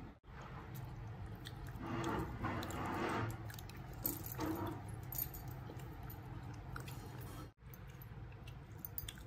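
Fingers mixing and pressing chicken biryani rice on a banana leaf: soft squishing, crackly rustles and scattered small clicks, loudest in two short spells in the first half, over a low steady hum.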